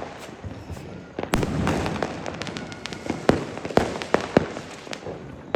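Firecrackers going off: scattered sharp bangs and pops at irregular intervals, one of the loudest just over a second in.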